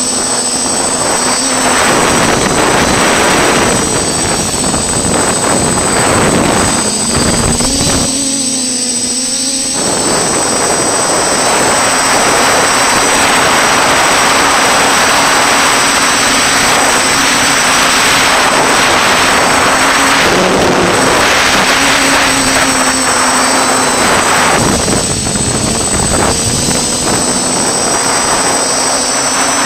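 FPV racing quadcopter's motors and propellers whining with rushing wind, as picked up by the drone's onboard camera. The sound eases off briefly about eight seconds in, then comes back.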